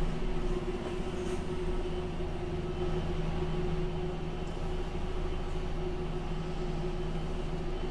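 DAF XF 480 truck's six-cylinder PACCAR MX-13 diesel running at steady revs during slow manoeuvring.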